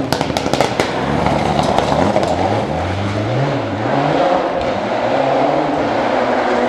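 Rally car's engine accelerating away hard through the gears on a gravel stage, the revs rising and dropping back with each upshift. A rapid string of sharp cracks in the first second, then the engine fades into a steady rush.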